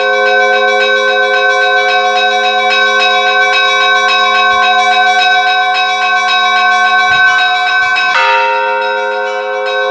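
Church bells ringing: smaller bells struck in a fast, even run of several strokes a second over the steady hum of larger bells. About eight seconds in, the ringing changes abruptly to a new pattern.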